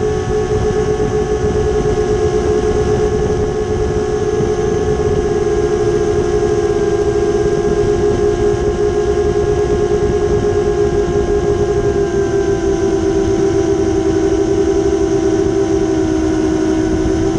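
A 7-inch FPV quadcopter's brushless motors and propellers whine steadily at full flight, a high drone that dips slightly in pitch about two-thirds of the way through. A rough rushing noise from the air moving past the onboard camera lies under it.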